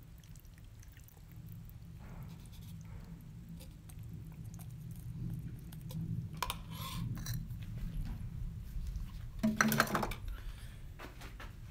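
Light kitchen handling sounds: a few short knocks and clicks as a plastic container and utensils are set down on a stone countertop, over a steady low rumble. The loudest clatter comes about ten seconds in.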